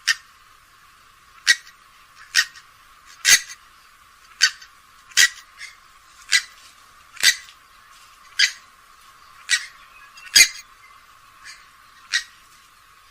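Grey-headed swamphen giving a series of short, sharp call notes, about one a second at uneven intervals, with a few fainter ones between.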